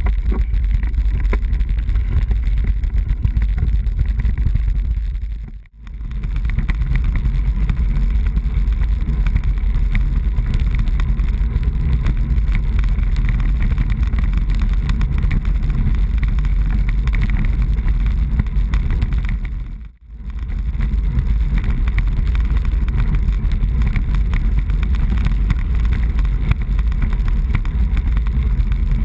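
Wind rushing over the microphone of a bike-mounted camera on a road bike being ridden at speed, a steady low rumble with road noise mixed in. It drops out briefly twice, about six seconds and twenty seconds in.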